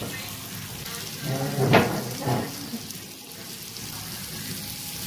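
Butter sizzling on a hot metal sizzler plate as it is rubbed across the surface, a steady hiss like light rain.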